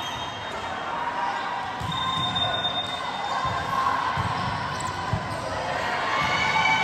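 A volleyball bounced on a gym floor: several dull thuds about a second apart, over a murmur of spectators' voices.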